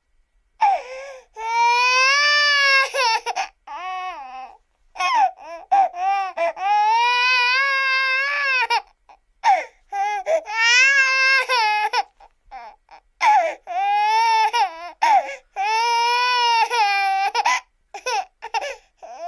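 A baby crying: a run of high, drawn-out wailing cries, each one to three seconds long, broken by short gasps and choppy sobs.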